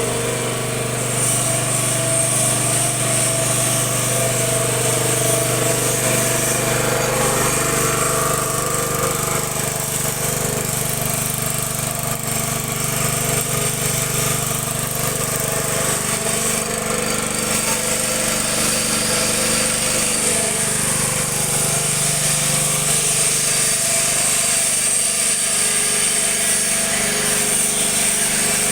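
Water-well drilling machine running steadily, a loud mechanical drone with a constant engine hum and a high hiss. The pitch of its tones shifts a little about 8 and 20 seconds in.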